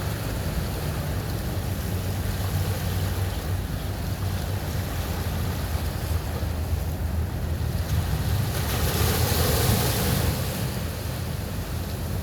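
Ocean surf breaking and washing up a beach, with a steady low rumble of wind on the microphone. A louder wave surges in about nine seconds in and fades.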